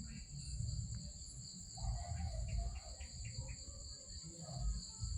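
Steady, unbroken high-pitched chirring of an insect chorus, such as crickets, with low rumbling noise and faint indistinct sounds underneath.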